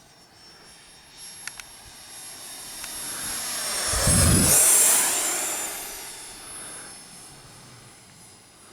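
Electric ducted-fan RC jet (Freewing Hawk T1, 70 mm fan on 6S) making a fast flyby: a high fan whine and rush swell to a peak about halfway, the whine drops in pitch as it passes, then it fades away.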